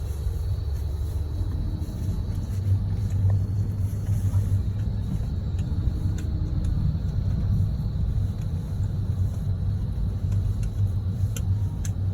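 Car's engine and road rumble heard from inside the cabin as the car pulls away and drives on; the low rumble grows stronger a second or two in and then holds steady.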